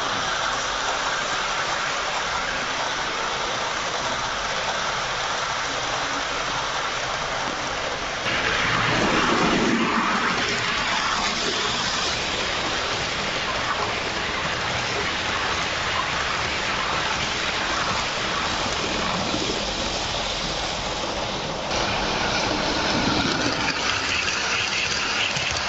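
H0-scale model train running on its layout track: a steady rolling rush of metal wheels on rails, changing abruptly and getting louder about 8 seconds in and again about 22 seconds in.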